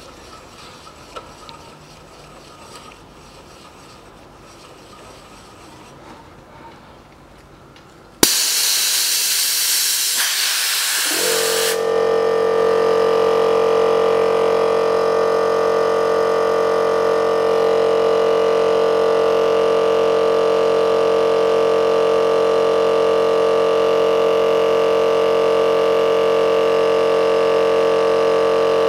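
Compressed air hisses loudly for about three seconds after a sharp click. Then the repaired 50-litre piston air compressor's electric motor and pump start, spin up and run steadily with an even, many-toned drone, pumping the tank up again.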